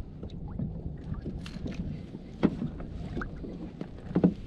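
Wind and water noise on an open-water kayak, with two dull knocks, one about two and a half seconds in and a louder one near the end.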